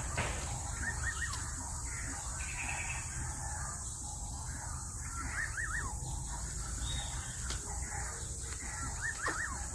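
A bird calling three times, each call a quick run of three or four rising-and-falling notes, over a steady background hiss.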